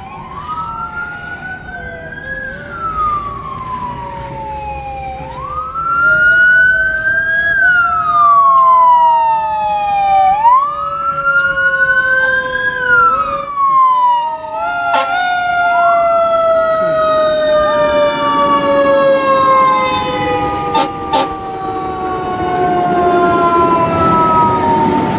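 Fire apparatus sirens wailing, each cycle rising quickly and then sliding slowly down, repeating about every five seconds over a lower, steadier falling tone. Near the end a fire ladder truck's engine grows louder as it passes close by.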